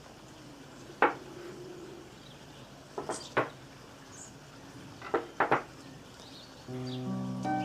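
A few light knocks and clinks of household objects being handled and set down: one about a second in, a quick cluster of three around three seconds, and three more around five seconds. Background music with steady notes comes in near the end.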